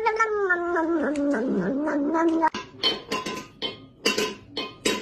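A cat's long, wavering yowl, falling in pitch and then rising again, lasting about two and a half seconds. It cuts off abruptly and is followed by a run of short, sharp sounds.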